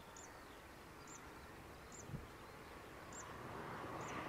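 Faint, distant jet engine noise from the taxiing Airbus A350-941's Rolls-Royce Trent XWB engines, growing louder in the last second or so. A small high chirp repeats about once a second over it.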